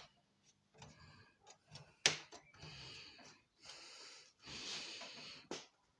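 Handling noise from prying at a flat-screen TV's plastic side trim: a sharp click about two seconds in and another near the end, with stretches of rasping scraping between them.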